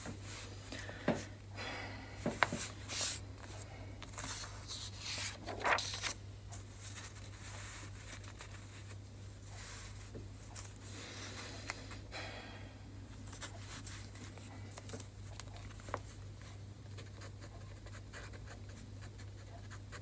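Paper handling in the first six seconds: rustling and sliding with a few sharp clicks. Then a felt-tip marker scratches across a sheet of paper in short strokes, handwriting. A low steady hum runs underneath.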